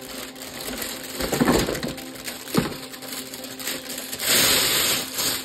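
Plastic toy parts and packaging being handled, crinkling and crunching, with a sharp snap about two and a half seconds in and a loud rustle lasting about a second near the end.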